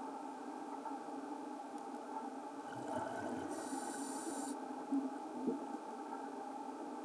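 Muffled underwater noise picked up by a camera in a housing, with one scuba diver's breath: a low bubbling rumble about three seconds in, then a high hiss from the regulator lasting about a second. Two soft knocks follow shortly after.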